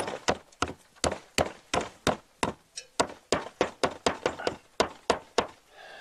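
Hammer striking upward into the underside of a wooden roof, knocking protruding nails back up through the plywood: a steady run of sharp blows, about three a second, that stops shortly before the end.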